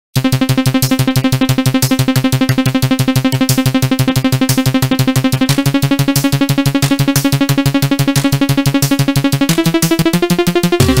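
Electronic synthesizer music made in LMMS: a fast, evenly pulsing stream of repeated synth notes. The chord shifts about halfway through and again near the end, where a deep bass line comes in.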